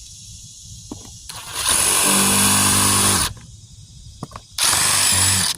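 Power drill running in two bursts, about two seconds and then one second long, drilling ventilation holes in a compost bin.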